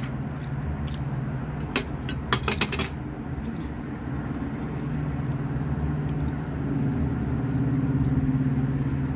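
A steady low machine hum, with a short run of sharp clicks about two to three seconds in.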